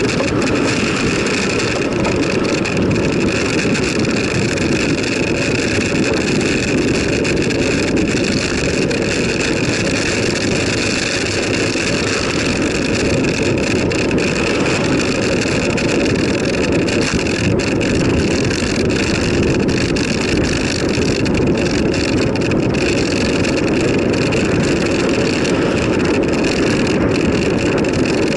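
Steady rushing wind noise and rumble on the microphone of a camera carried on a moving bicycle, running at an even level throughout.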